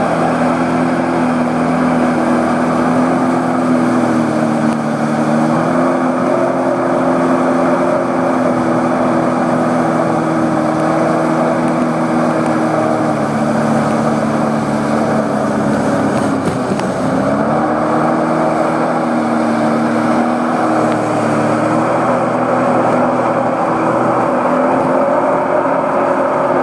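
Sea-Doo personal watercraft engine running steadily at cruising speed, under a loud rush of water and wind. About seventeen seconds in the engine note drops briefly as the throttle eases, then climbs back.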